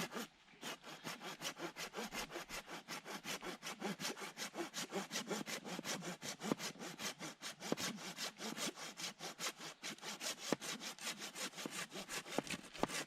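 Hand saw cutting through a debarked wooden stick in fast, even strokes, about four a second, with a brief pause just after the start.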